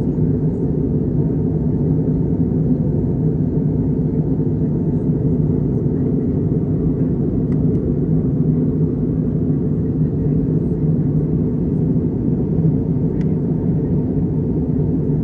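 Cabin noise inside a jet airliner in flight: a steady low rumble of engines and rushing air.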